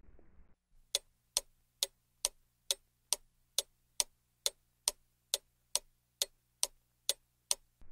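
A clock ticking evenly, a little over two ticks a second, starting about a second in and stopping just before the end. It is a sound effect marking the time to think over a quiz question before the answer is given.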